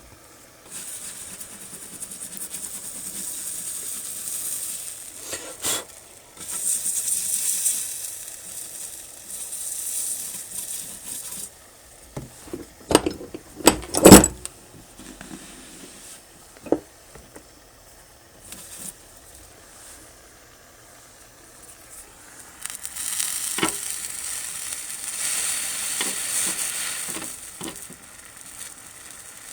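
Flux and solder sizzling under a hot soldering iron drawn along a vertical seam on copper sheet, in several stretches of a few seconds each. About halfway through, a cluster of sharp metallic clicks and knocks is the loudest sound.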